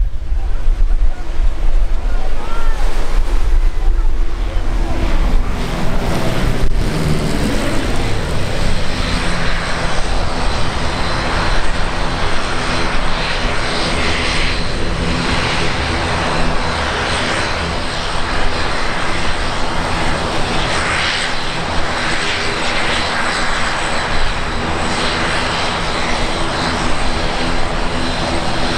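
Aircraft engines running, with a sweep falling in pitch about six seconds in as the aircraft passes, then a steady hum of several held tones under a rushing noise.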